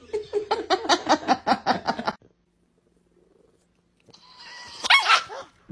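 A rapid run of short pitched sounds for about two seconds, then a pause, then a dog giving one loud, high bark-like call near the end.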